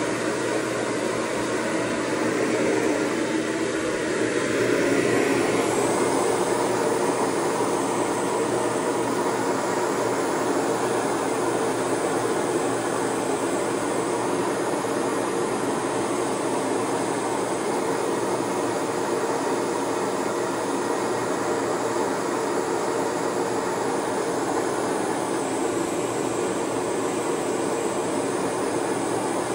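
Shower spray running steadily, an even hiss of falling water whose texture shifts about five seconds in.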